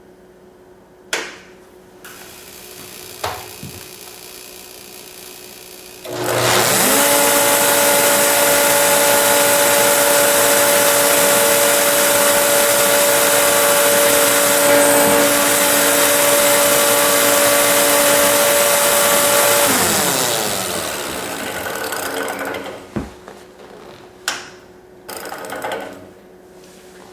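An electric motor spins up, runs steadily for about thirteen seconds with a strong rush of air, then winds down as its pitch falls. Light clicks come before it and a few knocks after.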